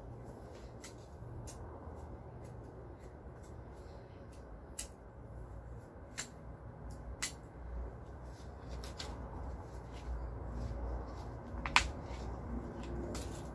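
Scattered soft clicks and scrapes of a metal hand trowel digging into loose garden soil, and a plastic nursery pot being handled as seedlings are transplanted, with the sharpest click near the end.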